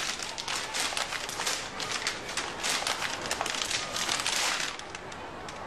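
Gift wrapping crinkling and crackling as it is pulled open by hand, settling down near the end.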